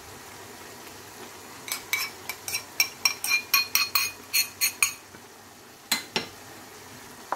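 A metal utensil clinking and scraping against a ceramic bowl as tomato sauce is scraped out into a frying pan: a quick run of about a dozen ringing clinks over some three seconds. Two sharper knocks follow about six seconds in.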